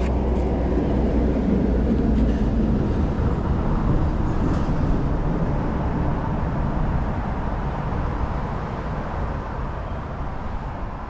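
A boat's motor running steadily with a low rumble. It swells at the start and slowly fades away.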